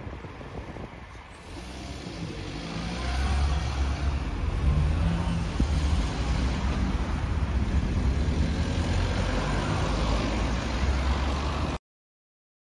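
A small hatchback car driving past close by on the street, its engine and tyre rumble building from about two seconds in and running loud for several seconds. The sound cuts off suddenly near the end.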